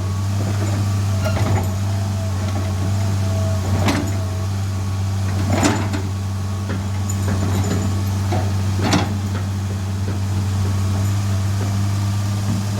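Heavy diesel engine, most likely the excavator's, idling steadily, with four sharp clanks of metal on metal spread over the stretch.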